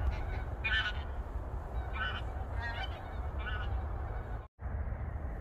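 Geese honking: about four short calls over a steady low rumble. The sound cuts out briefly near the end.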